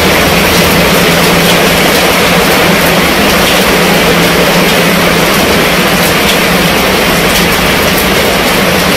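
Heavy rain falling on a fabric tent canopy: a dense, steady patter with scattered sharper drop hits.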